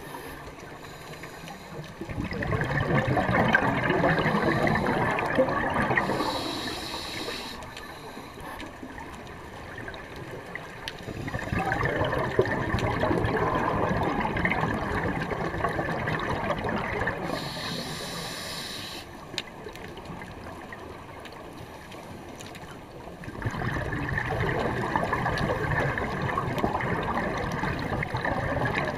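Scuba diver breathing through a regulator, heard underwater: three long rushes of exhaled bubbles about ten seconds apart, with a short hiss of inhalation through the regulator between them.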